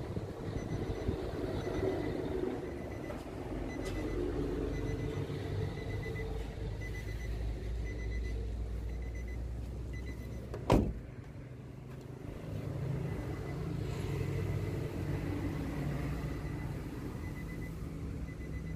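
A pickup's door is shut with one loud thump about ten and a half seconds in, over a steady low vehicle rumble that is quieter after the door closes. A faint high chime repeats a few times a second before and after the thump.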